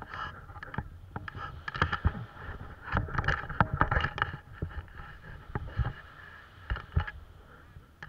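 Wind buffeting a close action-camera microphone, with irregular knocks and scrapes of the camera and its mount being jostled, busiest a few seconds in and again near the end.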